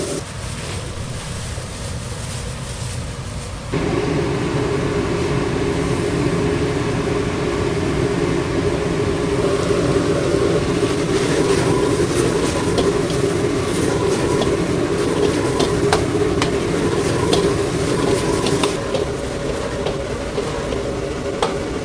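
Busy commercial kitchen noise: a steady rumbling roar with scattered clinks and clatter of utensils and dishes. It gets louder about four seconds in.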